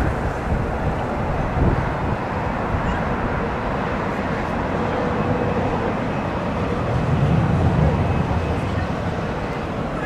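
Jet airliner engine noise mixed with wind buffeting the microphone, a steady rush over an uneven low rumble that swells about seven seconds in.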